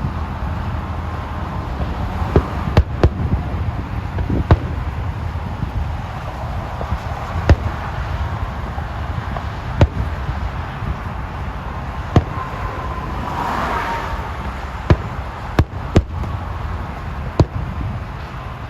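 Fireworks bursting: about a dozen sharp bangs at uneven intervals, with a brief crackling hiss about two-thirds of the way through, over a steady low rumble.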